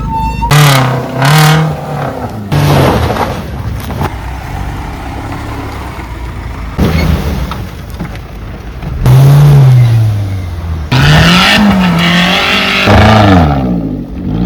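Off-road 4x4 engine revving several times, the pitch rising and falling, with steadier running between the revs; the revs are loudest in the second half.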